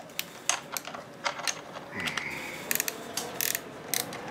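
Ratchet wrench clicking in short, irregular runs as a bolt in the starter solenoid bracket of an outboard engine is worked loose, with a brief squeak about two seconds in.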